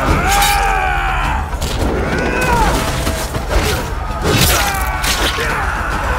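Voices shouting and crying out, with sharp crashes and impacts, over a low steady drone of dramatic score.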